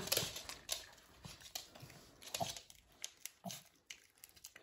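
Small dog chewing and gnawing a piece of dried salmon treat, with faint, irregular crunching clicks.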